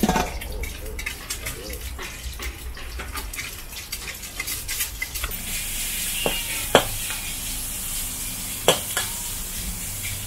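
Stir-frying in a wok: a metal spatula scrapes and taps against the pan, and a sizzle grows louder about five seconds in, with two sharp clanks of the spatula on the wok near the end.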